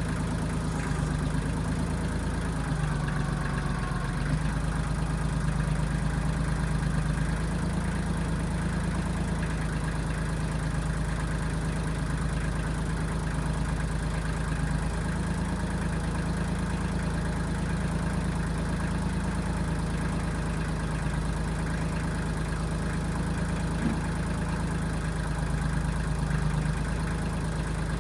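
Diesel engine of a 1995 Kubota backhoe running steadily, its low note lifting slightly a few times as the load changes.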